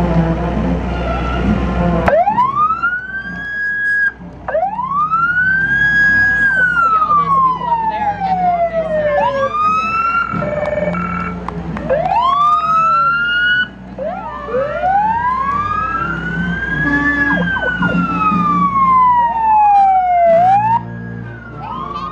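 Emergency vehicle sirens wail, the pitch rising quickly and falling slowly in long repeated sweeps, with more than one siren overlapping. For about the first two seconds, before the sirens start, only a steady low hum from a generator is heard.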